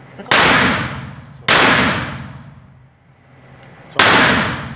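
Glock G25 .380 ACP pistol firing three shots, each with a long echoing tail in an indoor range: two about a second apart, then a third a couple of seconds later.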